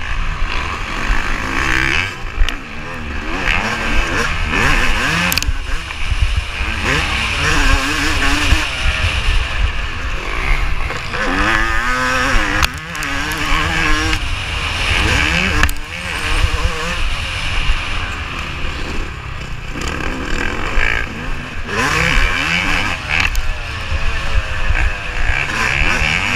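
Yamaha YZ250 two-stroke motocross engine revving up and falling off again and again as it is ridden hard around a dirt track, with steady low wind rumble on the microphone and a few sharp knocks from the bumps.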